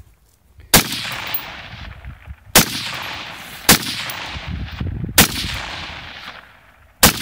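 AR-15 rifle firing five single shots, spaced one to two seconds apart. Each sharp crack is followed by a long rolling echo that dies away over a second or more.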